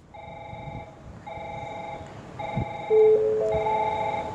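Electronic warning tone sounding in repeated pulses of about a second each, typical of a Japanese station's alarm for an approaching through train. About three seconds in, a four-note chime steps upward over it and holds.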